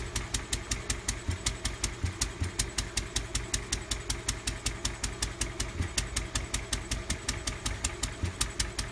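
Lister D single-cylinder stationary engine running steadily, its exhaust beats coming evenly at about four a second.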